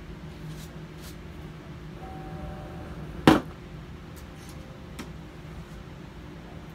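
A single sharp knock about three seconds in, a hard object struck or set down on a hard surface, with a fainter click near five seconds, against a low steady hum.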